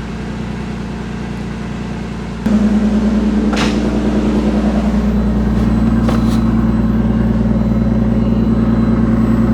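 Car engine running, heard from inside the cabin. About two and a half seconds in, a louder steady low hum sets in and holds. The newly fitted DeatschWerks DW300 fuel pump is not picked out over it, which is negligible, whisper quiet.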